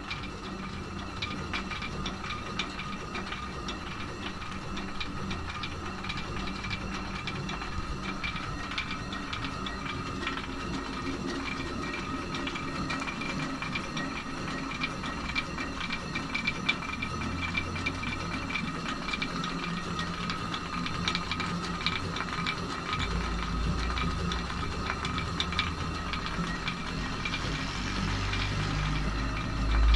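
Traditional stone mill grinding wheat into flour: the turning millstone runs steadily while the hopper's feed fitting rattles against it in rapid, dense ticks. A low rumble grows in over the last several seconds.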